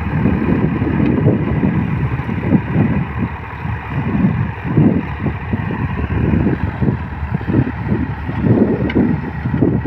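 Diesel tractor engine running, its low rumble rising and falling unevenly.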